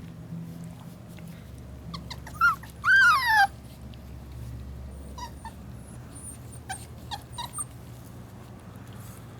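Miniature schnauzer puppy whimpering: a short high whine about two seconds in, then a louder whine that falls in pitch, followed by several faint short yips.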